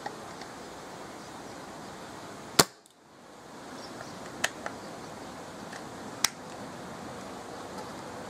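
Homemade airgun firing three shots, each a sharp crack, about two seconds apart, the first the loudest. Steady wind noise on the microphone runs underneath.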